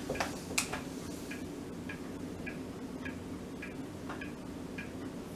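Clock ticking steadily, about two ticks a second, over a low steady hum. A few sharp clicks in the first second come from handling a seed container and measuring spoon.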